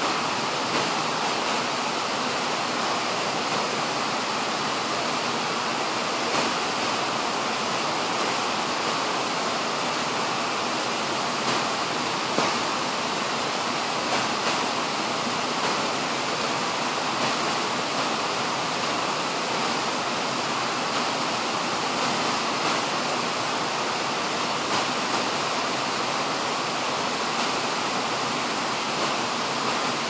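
Steady rush of a waterfall, an even roar of falling water with no let-up, with a few faint knocks now and then.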